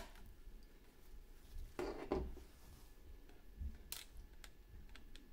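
Light handling sounds of plastic and cardboard: a short scrape about two seconds in, then a sharp click about four seconds in and a few faint ticks.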